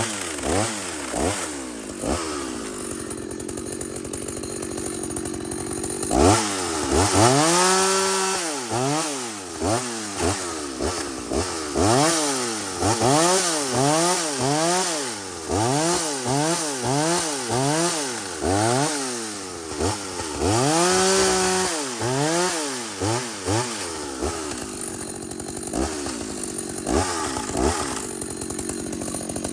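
Chainsaw engine idling, then revved up and down over and over in quick throttle blips, settling back to idle near the end.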